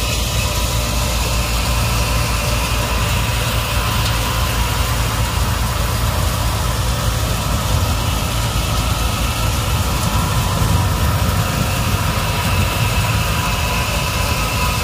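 Tractor-driven Nataraj thresher running steadily while threshing mung beans: a loud, unbroken machine drone, heaviest in the low end.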